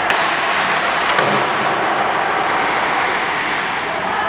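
Steady ice-rink noise of a hockey practice, with two sharp clacks of stick and puck: one at the very start and one just over a second later.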